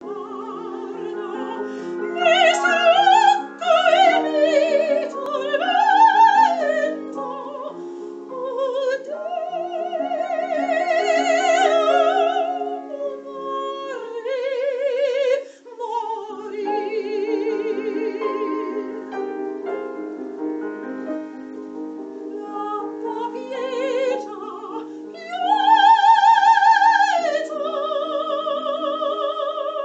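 Operatic soprano singing a classical song with piano accompaniment, long notes sung with a wide vibrato over repeated piano chords. The voice swells onto loud held high notes, the loudest about three quarters of the way through.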